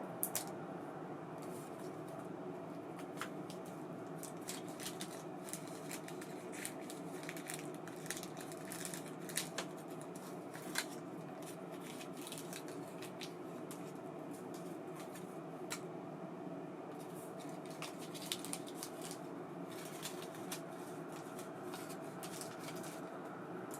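Scattered light clicks and small rattles, as of reel parts being handled, over a steady low hum.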